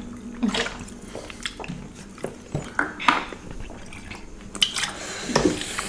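Close-miked eating: wet chewing and smacking, with scattered clicks of cutlery against a dish.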